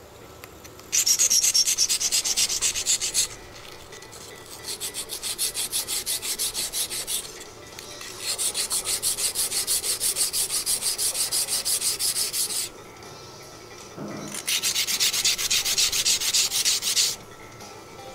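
A small hand-held whetstone scraping in rapid back-and-forth strokes over the rusted steel of a Japanese Yanagiba blade, rubbing off the rust. The strokes come in four spells, each a few seconds long, with short pauses between them.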